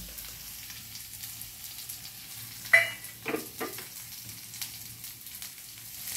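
Chopped vegetables with ginger paste sizzling in hot oil in a metal kadai while a spoon stirs them, a steady frying hiss. A sharp metallic clink, the loudest sound, comes a little before halfway, followed by a few lighter knocks of the spoon.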